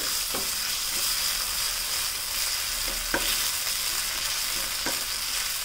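Green chillies and grated ginger sizzling in hot groundnut oil with cumin seeds while being stirred in a nonstick pan, with a few soft clicks of the silicone spatula against the pan.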